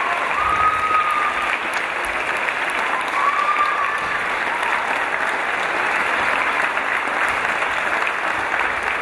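Crowd applauding steadily, with a couple of drawn-out calls rising over the clapping in the first few seconds.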